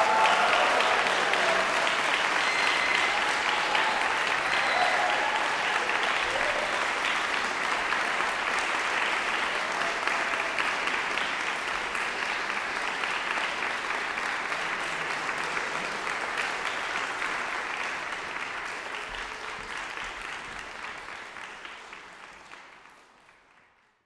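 Audience applauding, with a few cheers in the first few seconds; the applause slowly dies down and fades out near the end.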